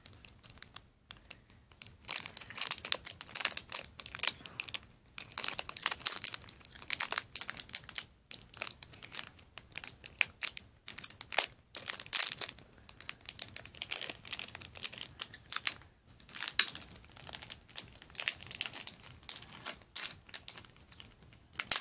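Plastic Shopkins blind-bag packet crinkling and crackling in irregular bursts with short pauses as it is pulled and bitten open, a packet that is hard to open.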